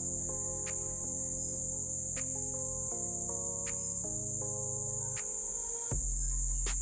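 Background music: a soft melody with changing notes over bass, with light ticking percussion, and a steady high-pitched whine running under it.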